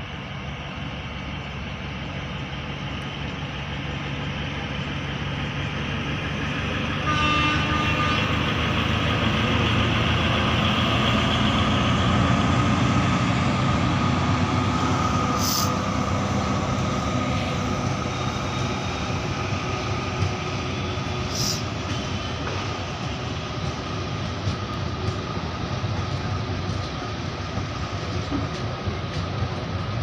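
Indian Railways DEMU diesel train running past: the power car's engine and wheels on the rails grow louder as it draws near, with a sudden step up in loudness about seven seconds in. The coaches then rumble and clatter steadily past, with a couple of sharp clicks from the track.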